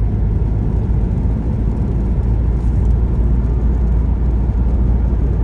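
Steady low rumble of a car driving along a highway, engine and road noise heard from inside the car.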